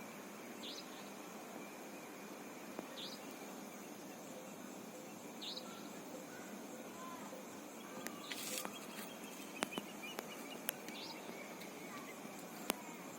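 Faint night chorus of insects, a steady high trill, with a short high chirp repeated about every two and a half seconds. A brief rustle comes about eight seconds in, and a few sharp clicks follow.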